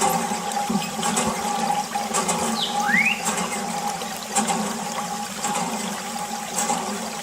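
Water running and splashing continuously over a steady hum, with a few short whistling pitch glides on top.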